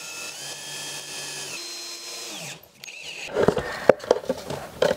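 Cordless drill running into a wooden block: the motor whine rises to speed, holds steady, then winds down and stops about two and a half seconds in. Scattered wooden knocks and clicks follow as the board is handled.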